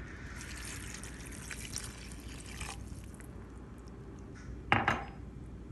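Apple cider vinegar poured from a mug into a steel pot of hot, sautéed pickle mix, a steady pour lasting about two and a half seconds. Two sharp knocks come close together near the end.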